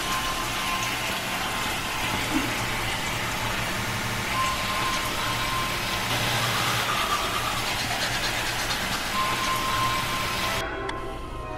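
Steady rumbling drone of horror-film sound design, with a low hum underneath and a thin high tone that comes and goes three times; it drops away shortly before the end.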